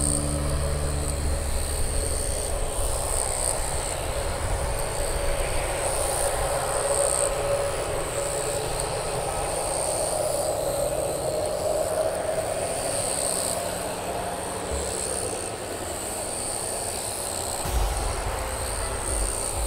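Airbus A320neo jet engines running at a distance: a steady rumble with a whine that swells about halfway through and then eases off. Insects buzz high above it in pulses.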